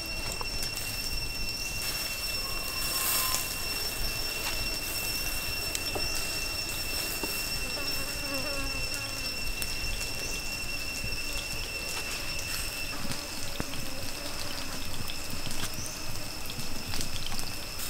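Charcoal crackling and chicken drumsticks sizzling on a wire grill over glowing coals, with scattered small clicks. A steady high whine runs underneath and stops about two-thirds of the way through.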